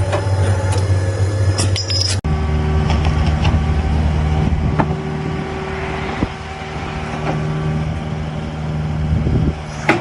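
Motor running steadily, with scattered knocks and clicks; about two seconds in it cuts off abruptly and another steady motor hum follows.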